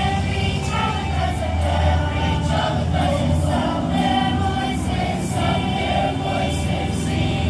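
Middle school choir singing, accompanied by handbells whose ringing notes hold as steady high tones above the voices.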